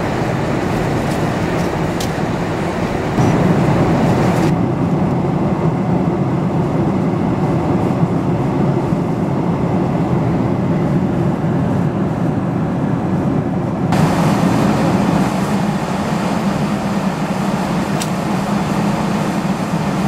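Steady cabin noise of a Boeing 747-400 airliner at cruise altitude: a loud, even rush of engine and airflow noise, heavy in the low and middle range. Its tone changes abruptly a few times.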